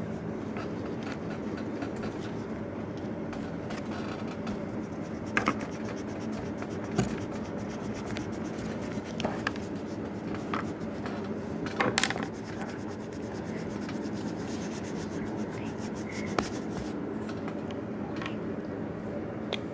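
Fingers and a marker rubbing and scratching on a sheet of paper, with a few sharp taps and knocks, over a steady background hum.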